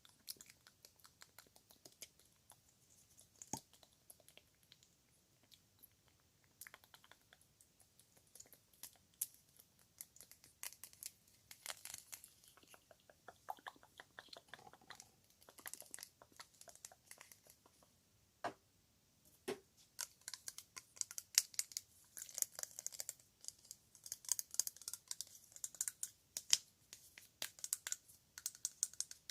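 Fast, close-up ASMR tapping and clicking on small props: a rapid patter of short, sharp taps, sparse at first and growing busier and louder in the last third.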